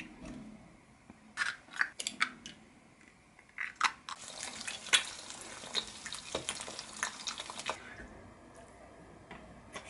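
Eggs frying in oil in a hot two-cup frying pan: a few sharp taps and clicks of pan and utensils, then a crackling sizzle that stops about eight seconds in.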